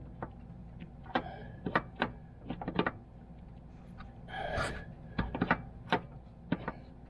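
Scattered light clicks and taps of metal parts as an A/C expansion valve is worked by hand into its fitting, with a short breath about four and a half seconds in.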